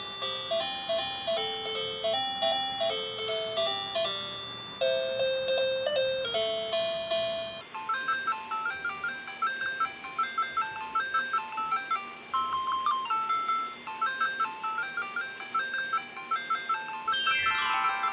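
Cartoon background music: a light melody of short, bouncing notes. The tune changes to a new, higher pattern about eight seconds in. Near the end a quick falling glide sweeps down.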